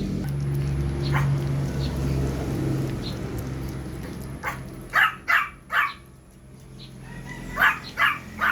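Chihuahua puppy giving short, sharp yips: three quick ones in the middle and three more near the end, over a low steady hum.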